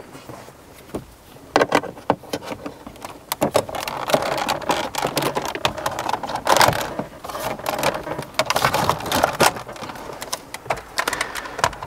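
A screwdriver probing down a hole in a car dashboard to release the metal clip holding the head unit: irregular clicks, scrapes and rattles of metal on plastic trim, busiest in the middle.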